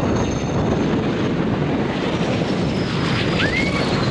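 Aircraft engine noise: a steady rumble with a faint high whine that slowly falls in pitch, and a short rising chirp about three and a half seconds in.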